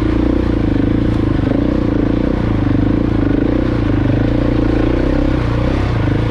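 KTM 690 Enduro R's single-cylinder four-stroke engine running steadily as the bike is ridden at a modest pace, its note rising and falling slightly with the throttle.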